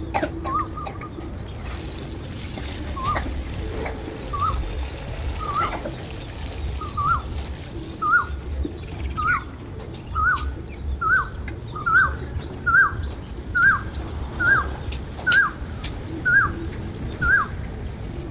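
A bird calling one short, hooked note over and over, a little more than once a second. The notes grow louder through the series and stop shortly before the end, over a steady low outdoor background.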